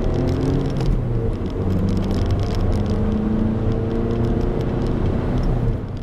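2012 Mazda3 Skyactiv's 2.0-litre four-cylinder engine and tyre noise heard from inside the cabin while driving, the engine note rising slowly a couple of times as the car pulls.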